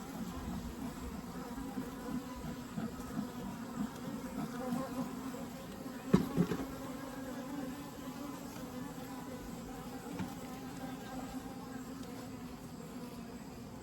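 Honeybees buzzing steadily at a low hum from an open hive during frame inspection, with a single sharp knock about six seconds in.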